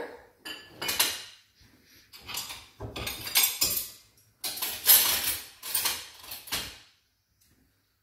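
Metal knives and forks clattering together as they are gathered up, with clinks of crockery among them; a string of irregular clatters that stops about a second before the end.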